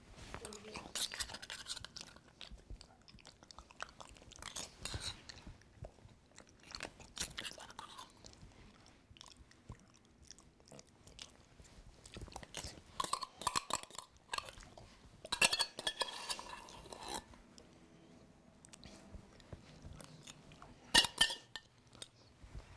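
Someone eating canned beans and franks from the tin with a metal spoon: chewing on and off, with the spoon now and then clinking and scraping against the can.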